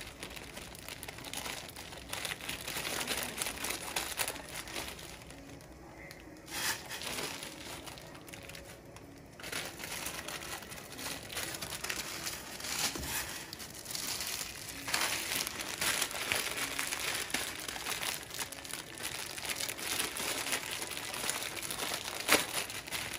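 Water heating toward the boil in a stainless steel pot, a steady crackling hiss of forming bubbles. An instant-noodle packet crinkles and the noodle block drops into the water with a soft knock about halfway through, and there is a sharp knock near the end.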